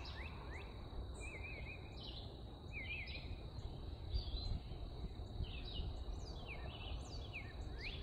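Several songbirds singing at once in short, separate whistled and chirped phrases, among them the brief repeated song snippets of a red-eyed vireo, over a steady low background rumble.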